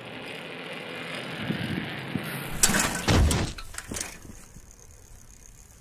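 A child's bicycle rolling along an asphalt path, then a burst of clattering knocks and a heavy thump about two and a half seconds in: the bike and rider crashing onto the asphalt.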